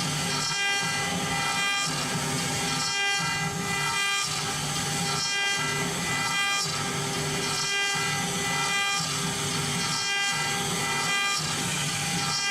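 CNC advertising-sign router cutting: the spindle whines steadily at one pitch, and the cutting noise beneath it swells and dips about once a second as the bit moves through the material.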